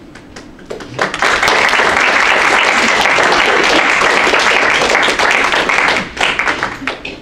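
Small audience applauding, starting about a second in and dying away near the end.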